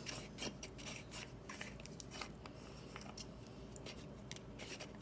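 Faint rustling with scattered light clicks, the small sounds of handling and movement close to the microphone.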